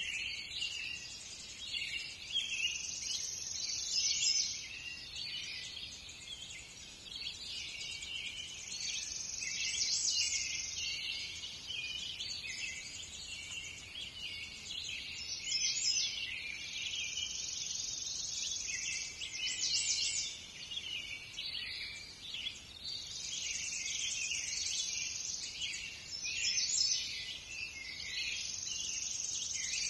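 Several songbirds singing and chirping at once in woodland, a continuous busy chorus. Long high trills come in every few seconds.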